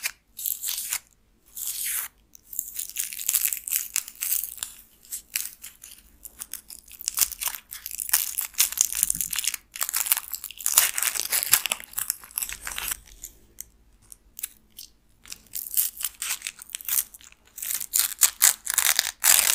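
Shiny foil wrapping and pink paper fringe on a craft stick, crinkling and rustling as fingers handle it close to the microphone, in irregular bursts with short pauses.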